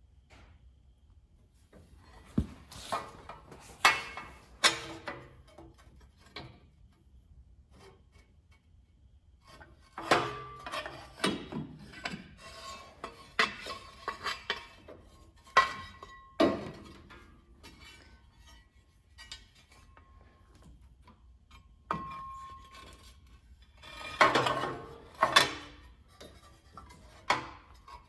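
Metal parts being handled and fitted: irregular clanks, taps and scraping in clusters, some knocks leaving a short metallic ring, with quiet pauses in between.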